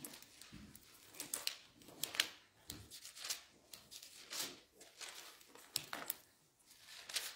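Faint rustling and light clicks of Bible pages being leafed through, irregular and a few each second, as the place is found in Exodus.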